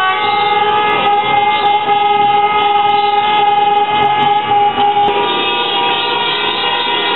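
Many car horns sounding at once, held long and overlapping, in celebration after a football victory. The chord of horn tones shifts about five seconds in as some horns stop and others start.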